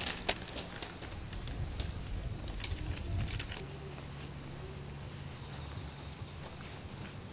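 Faint outdoor ambience: scattered light clicks over a steady high-pitched hiss and a low rumble. The background changes abruptly about three and a half seconds in to a different steady high tone with a low hum.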